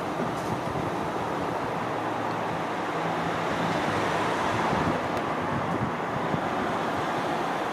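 Steady rumble and hiss of distant trains rolling along the track on the far bank: the tail of a freight train and a class 143 electric locomotive hauling an S-Bahn, mixed with wind. It swells slightly about halfway through.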